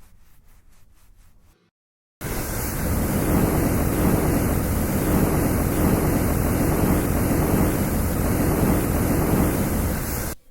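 A loud, steady rushing noise starts about two seconds in, holds for about eight seconds and cuts off sharply near the end. It is preceded by a brief run of faint, quick, regular ticks.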